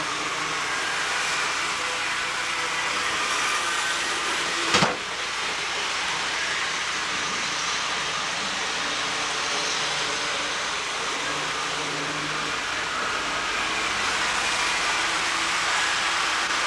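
HO scale model trains running on the layout: a steady whirring hiss, with one sharp knock about five seconds in.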